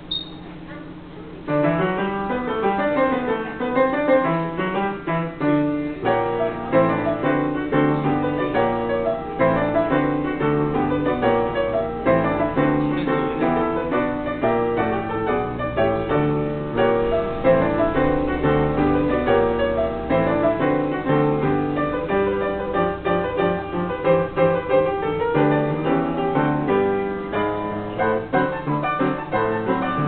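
Upright player piano (pianola) playing a perforated paper music roll: a lively piano tune of fast, dense notes that starts about a second and a half in, after a short click.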